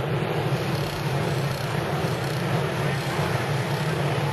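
Engines of antique pre-1910 board-track racing motorcycles running at racing speed around the track, a steady loud drone.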